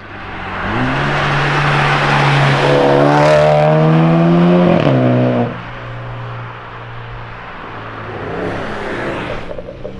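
A 2018 BMW X1's engine through an aftermarket Guerrilla exhaust, the exhaust note climbing steadily in revs for a few seconds, then falling away sharply about halfway through and settling to a quieter, lower running sound.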